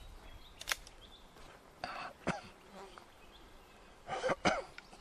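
Sharp metallic clicks from an 1860 Colt Army percussion revolver being handled while it is loaded with paper cartridges. There are about five short clicks, the last two close together near the end.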